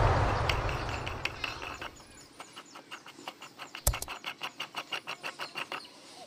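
A loud rushing rumble fades over the first two seconds. Then comes a quick run of light clicks, about five a second, with one sharper knock near the middle, as a white plastic nut is screwed by hand onto a threaded plastic tank connector.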